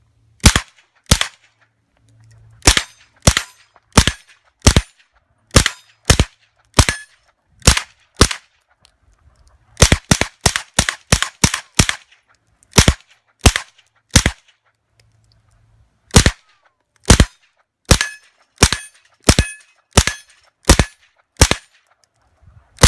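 IMI Uzi 9mm firing supersonic 9mm rounds through a Bowers Versa .45 suppressor: about thirty sharp, separate shots, mostly one or two a second, with a quicker string of about seven near the middle. Even with supersonic ammunition it is still quiet.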